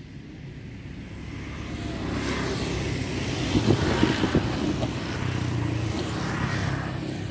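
A motor vehicle's engine running as it passes: it grows louder over a couple of seconds, is loudest around the middle, then fades away.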